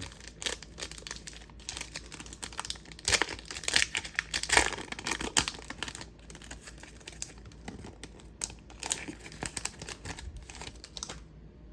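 Trading-card pack wrapper being torn open by hand and crinkled, with irregular crackling and rustling that stops shortly before the end.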